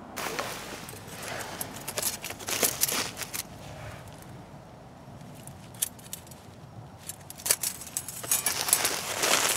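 Handful of stainless steel worm-drive hose clamps jingling and clinking together as they are handled in a gloved hand, in two bursts of metallic clicks, one about two seconds in and one near the end.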